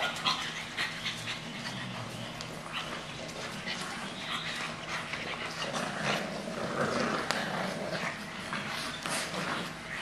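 English bulldog puppies playing with toys: small dog vocal noises mixed with frequent clicks and taps of claws and toys on a tile floor, over a steady low hum.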